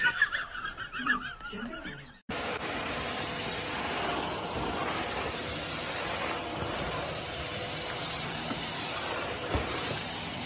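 A vacuum cleaner running steadily, an even hiss with a faint high whine, starting about two seconds in after a short, louder wavering voice-like sound.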